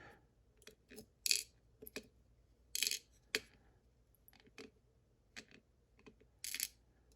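Irregular light metallic clicks and taps of small lock parts, such as pins and springs, being handled and set down while a pin-in-pin lock is taken apart.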